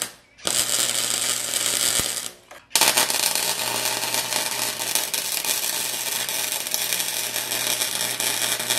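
Flux-core MIG welder arc crackling as it lays weld on a stainless exhaust pipe: a brief blip, a run of about two seconds, a short pause, then a steady run of about six seconds.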